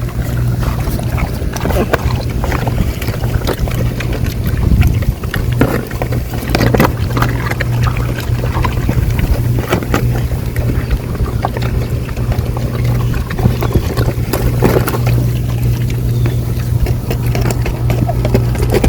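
A small engine running steadily with a low drone, with scattered knocks and clatter over it.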